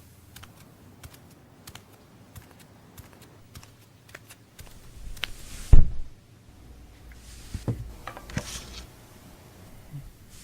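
Scattered light clicks and taps at an irregular pace, like keys being struck. One much louder knock comes near the middle.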